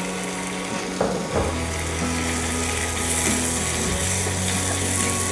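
Chopped tomatoes and spring onions sizzling in hot oil in a wok, stirred with a spatula, with a couple of knocks about a second in. Soft background music with held notes runs underneath.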